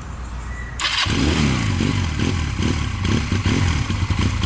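Honda Rebel 250 (CMX250) motorcycle engine starting about a second in, its revs rising briefly and then settling into a steady running beat.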